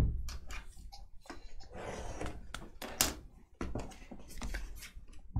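A black card-box being handled and opened: the lid and box sliding and scraping against each other, with scattered clicks and taps, one sharper tap about three seconds in.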